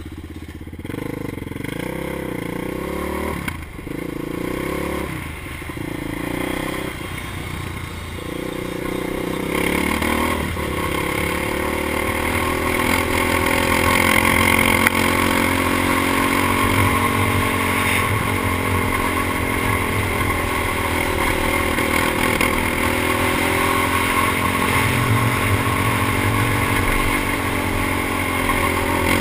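Sport quad ATV engine being ridden hard on a dirt track. The revs climb and break off several times in the first ten seconds as it shifts up. It then runs louder and steadily at high revs, with a rushing haze over it.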